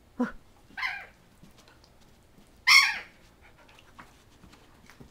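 A dog barking in play: two short barks within the first second and a louder, sharper bark nearly three seconds in.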